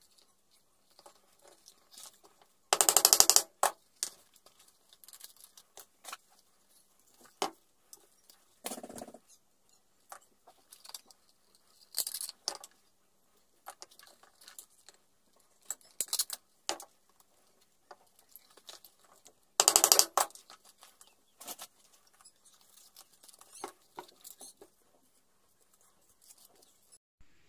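Leather and small metal hardware being handled while a sheath is put together: scattered light clicks and taps, with two loud rapid rattles lasting under a second, about 3 s and 20 s in.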